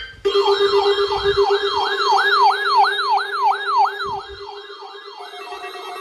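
Several weather alert radios sounding their alarms together after a Required Weekly Test broadcast: a siren tone that sweeps down over and over, about three times a second, over steady alarm tones. Near the end the sweeps fade and a steady beeping comes to the front.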